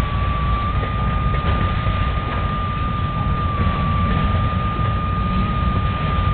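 A freight train of auto-rack cars rolling past with a steady rumble, and a single sustained high-pitched squeal from the wheels on the rails.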